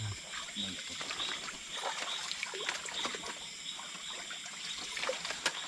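Water trickling and splashing lightly, with scattered small splashes and clicks throughout.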